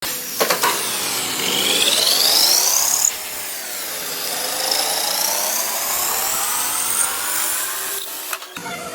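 CNC machine cutting aluminum: a steady machining whine that sweeps slowly up and down in pitch, changing abruptly about three seconds in and again near the end.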